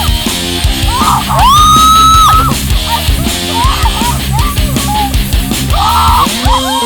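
Loud heavy rock music with yelled vocals, including one long held note about a second and a half in.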